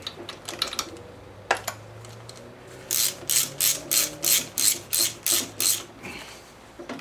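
Hand socket ratchet wrench clicking as it is worked: a few scattered clicks, then a steady run of about ten clicks, three or four a second, from about three seconds in.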